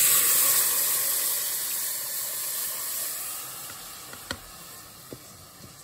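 Blended hog plum juice poured into a hot pot of onions fried in ghee, hitting the hot fat with a sudden loud sizzle that slowly dies away over about four seconds. A single light tap about four seconds in.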